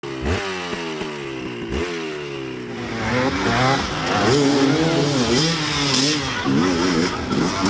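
Dirt bike engine revving. Its pitch falls away twice in the first two seconds, then rises and dips quickly as the throttle is worked.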